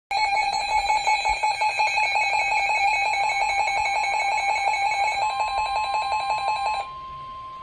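A weather radio receiver's electronic alert alarm beeping in a rapid pulsing pattern for about seven seconds. About five seconds in, the steady single-pitch 1050 Hz NOAA Weather Radio warning alarm tone starts under it and carries on after the beeping stops. Together they signal an incoming warning.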